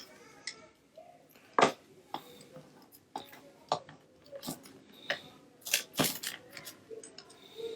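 Irregular sharp plastic clicks and knocks from a PS4 DualShock 4 controller's parts being handled and prised apart during teardown. The loudest knock comes about a second and a half in.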